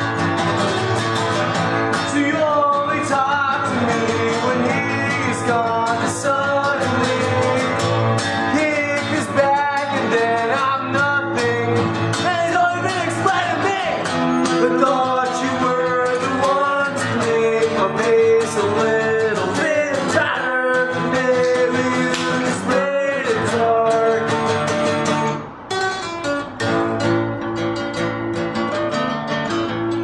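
Two acoustic guitars strumming and picking a song, with a voice singing a gliding melody over them. The music drops back briefly about 25 seconds in.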